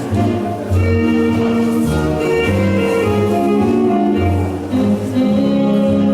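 Orchestral classical music for ballroom dancing, with strings playing sustained chords.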